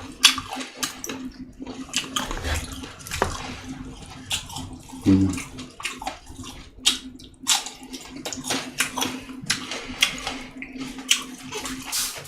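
Close-miked eating: wet chewing and mouth smacks, many short sharp clicks in quick succession. A brief low voiced sound comes about five seconds in, over a faint steady hum.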